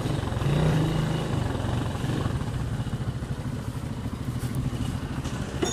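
Motorcycle engine running at low speed as the bike is ridden slowly, briefly louder about half a second in. It is on a test ride after a new sprocket and chain were fitted, and the drive no longer makes its earlier noise.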